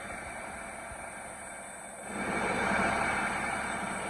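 Cummins ISX15 15-litre inline-six diesel engine running on a test stand, growing louder about two seconds in.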